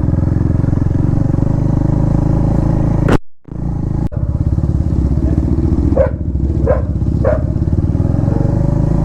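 Motorcycle engine idling steadily. The sound drops out briefly about three seconds in, then comes back, with a few short high chirps later on.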